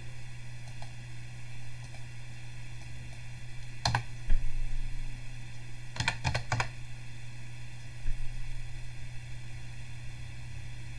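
Computer keyboard keys clicking as a search term is typed: a couple of keystrokes about four seconds in and a quick run of several about six seconds in, over a steady low hum.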